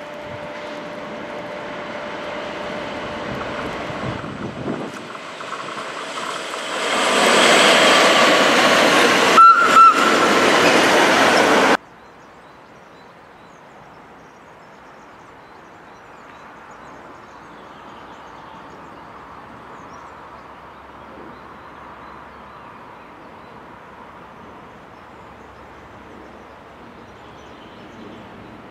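Swiss SBB electric locomotive hauling a freight train, approaching and passing close, its rumble and rail noise growing loud, with a faint electric whine at first and two brief sharp high sounds at its loudest. It cuts off abruptly about twelve seconds in, and a quieter, steady distant rumble of an electric locomotive and train follows.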